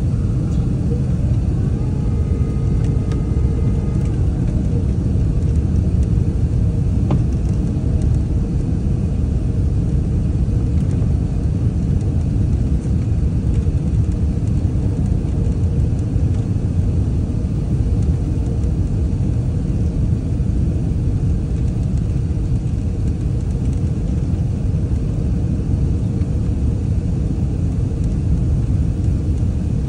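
Airbus A380-800 cabin noise heard from an upper-deck window seat in flight: a steady low rumble of airflow and engines.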